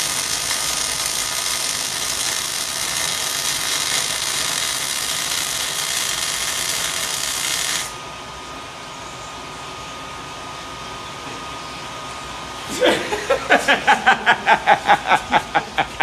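MIG welding arc crackling and hissing steadily while a fillet bead is run, cutting off abruptly about eight seconds in when the arc is broken. Near the end, a man laughs in a quick run of short bursts.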